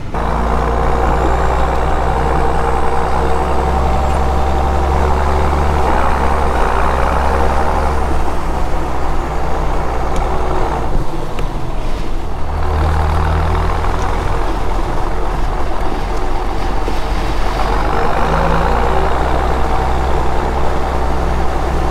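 Tractor engine running steadily while driving, heavy low-pitched engine note throughout. About eleven seconds in the engine note drops away briefly, then picks up again.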